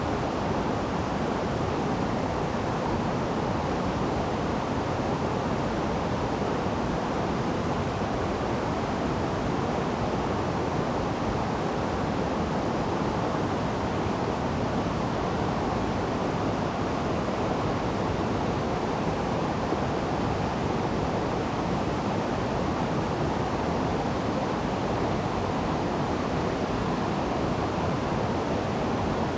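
Mountain stream water rushing, a steady unbroken noise.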